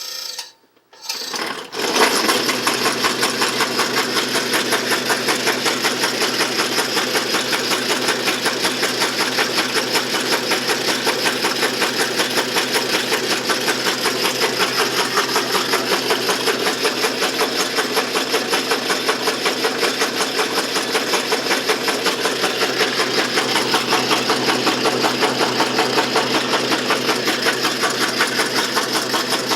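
Motorized can crusher switched on: a couple of brief bursts, then it settles into steady running about two seconds in, with an even rhythmic pulse. The running gear is its new stainless steel axles turning in freshly greased pillow block bearings.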